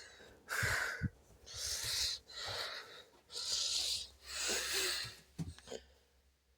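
A person breathing close to the microphone: about five hissy, wheezy breaths roughly a second apart, with a few soft thumps of handling.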